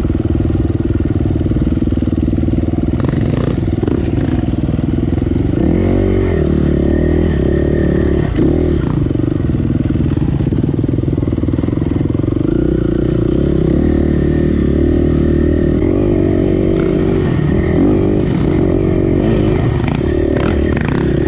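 KTM EXC four-stroke single-cylinder enduro bike engine running under load, its pitch rising and falling as the throttle opens and closes, with a few short knocks along the way.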